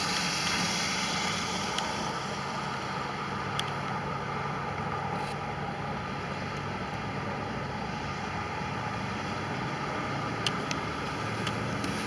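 Steady vehicle noise: a low engine hum, like an idling car, under an even hiss, with a few faint ticks.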